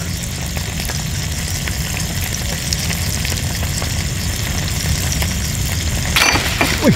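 Salted fish frying in hot oil in a small pan on a portable gas stove: a steady sizzle, with a sharper crackle about six seconds in.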